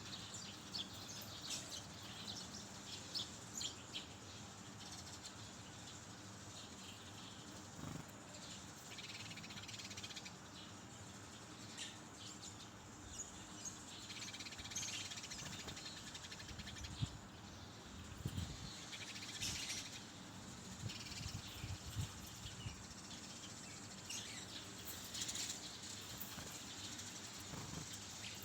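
Brown-chested jungle flycatcher singing faintly: short high chirps and whistled notes at irregular intervals, with a few low knocks in between.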